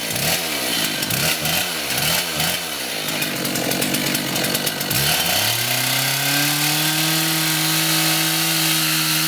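ICS diamond concrete chainsaw revving up and down in quick blips for the first few seconds. Around five seconds in its pitch dips, then climbs and holds steady at full throttle.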